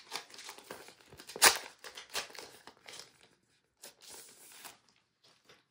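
Crinkling and rustling of a translucent sleeve being handled and opened, with irregular crackles, the sharpest about one and a half seconds in, and a longer rustle around four seconds in as the sticker sheet inside comes out.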